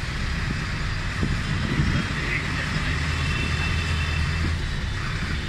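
Moving road vehicle heard from inside the cabin: a steady low engine hum under even road noise.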